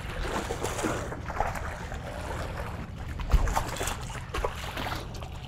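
A hooked bass thrashing and splashing at the water's surface beside a boat, with irregular splashes and one low thump a little past three seconds in.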